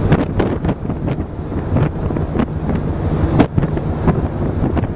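Wind buffeting the microphone in gusts, with repeated sharp pops over a low rumble.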